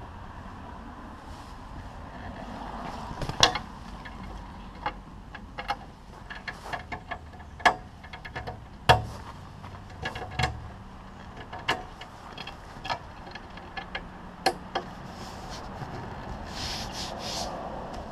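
A series of irregular sharp knocks and clicks, roughly one every second or so, over a faint low steady background.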